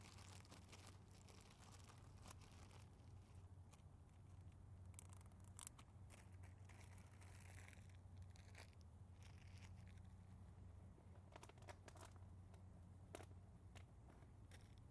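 Near silence: a steady low hum with scattered faint clicks and crackles.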